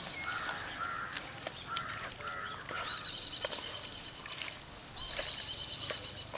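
Raw chicken pieces squelching and clicking as they are mixed by hand in a steel bowl. Birds call in the background with short, steady whistled notes, several in a row.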